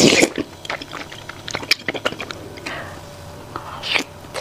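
Close-miked eating: a spoonful slurped, then chewing with many small wet mouth clicks, and another slurp or bite near the end.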